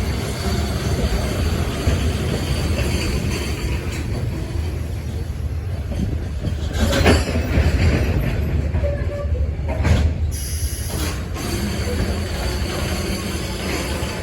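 Freight train hauled by a JR Freight EH500 electric locomotive rolling into a station: a steady low rumble of wheels on rail, with faint high wheel squeal and two sharp knocks about seven and ten seconds in.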